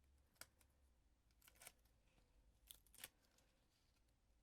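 Faint handling noise of small card pieces and foam pads on a craft desk: a few soft ticks and paper rustles, about half a second in, at one and a half seconds, and twice near three seconds, over low room tone.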